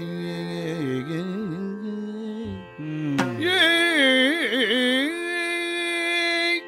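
Yakshagana bhagavata singing a long, ornamented held vowel over a steady drone, the pitch sliding and wavering. About three seconds in, the voice rises and gets louder.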